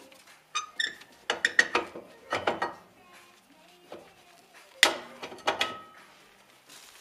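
Rear brake drum being wiggled and pulled off its hub by hand: several bursts of metallic scraping and clanking with a brief ring, the loudest about five seconds in.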